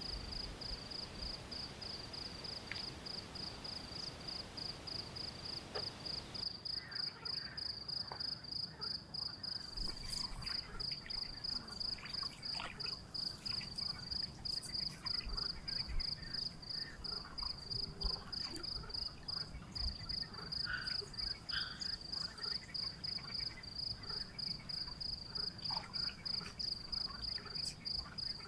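Crickets chirping in a fast, even pulsing rhythm, with scattered short calls from other night creatures. A soft hiss under them stops abruptly about six seconds in.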